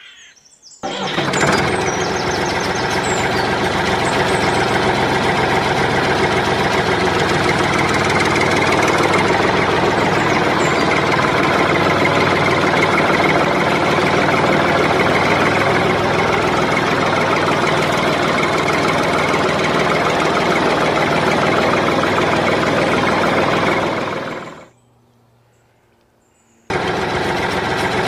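Engine-type running sound of a miniature toy tractor, a dense steady drone that starts about a second in, cuts out abruptly about 24 seconds in and starts again about two seconds later.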